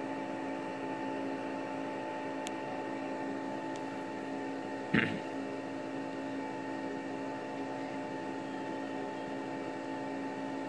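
Steady machine hum with several constant tones, as from a running appliance or fan, interrupted once by a brief short sound about five seconds in.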